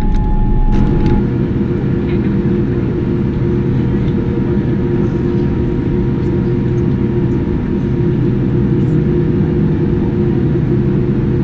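Steady droning engine and cabin noise of a Boeing 787-10 airliner taxiing, recorded against the cabin window, with a few steady humming tones. The drone changes in pitch and character less than a second in.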